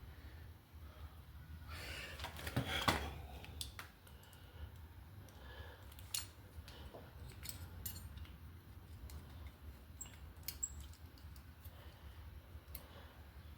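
Small metallic clicks and taps of hands fitting new brake pads and pins into a motorcycle's front brake caliper, with a louder rasping scrape of metal parts about two to three seconds in.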